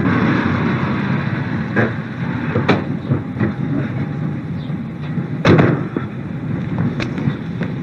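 Street traffic noise, with a few sharp knocks and clicks; the loudest knock is about five and a half seconds in.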